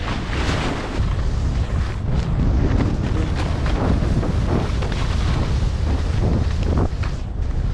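Wind buffeting an action camera's microphone as a skier descends at speed, a steady low rumble, with skis hissing and scraping through chopped snow in short, repeated strokes.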